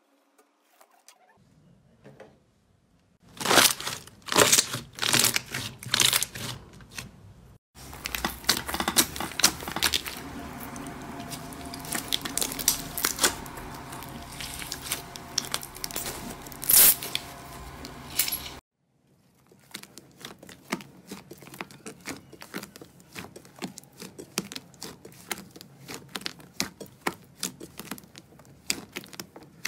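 Slime being squeezed, pressed and kneaded by hand, giving a run of sticky crackles and pops. The crackles are loudest and densest through the middle and fainter near the end.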